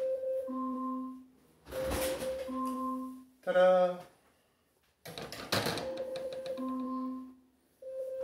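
Smart-speaker timer alarm going off: a short electronic chime of a few held tones, repeating about every three seconds to signal that the set time is up. A brief, louder tone with a different sound cuts in near the middle.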